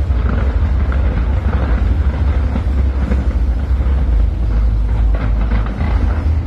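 Fireworks going off in quick succession, heard as a steady, heavy low rumble with a crackling haze above it.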